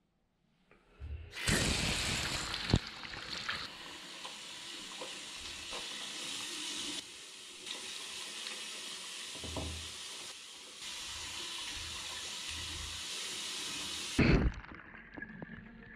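Bathroom sink mixer tap running, its stream splashing over cupped hands as a face is washed. The tap comes on about a second and a half in and is shut off near the end.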